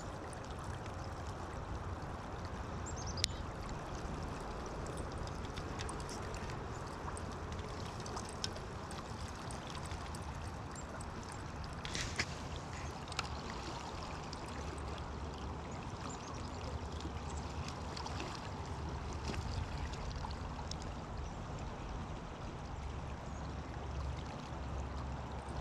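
Steady rush of river current flowing past a wader's legs, with a few faint clicks.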